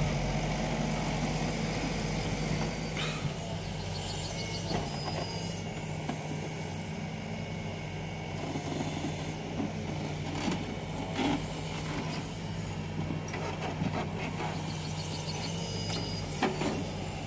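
Diesel engine of a Mecalac TLB850 backhoe loader running steadily while the backhoe arm works, with a few short knocks and clunks.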